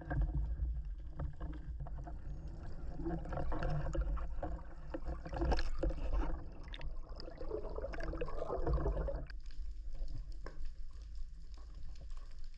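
Underwater water noise heard through a camera housing on a speargun: a steady low rumble of water moving, with scattered knocks and clicks from the gun and line being handled.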